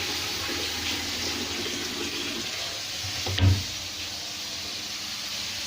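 Onion and ginger-garlic masala with a splash of water sizzling steadily in hot olive oil in a kadai. One dull thump about three and a half seconds in.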